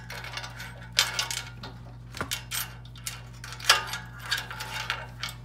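Keys jangling and metal clicking and rattling as a key is worked in the lock on the lid of a coin-operated candy vending machine, with a sharp clack a little under four seconds in. A steady low hum runs underneath.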